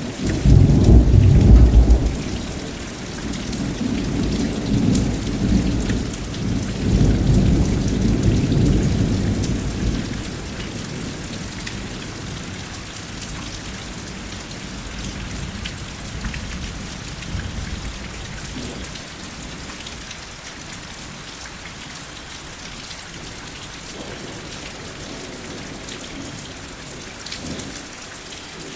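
Steady rain falling, with a loud roll of thunder that breaks out at the start, peaks in the first two seconds and rumbles on for about ten seconds before dying away, leaving the rain alone.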